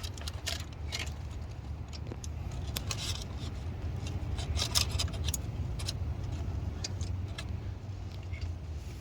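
Socket wrench and extension clicking and clinking against metal in scattered light knocks as bolts are worked loose, over a steady low hum.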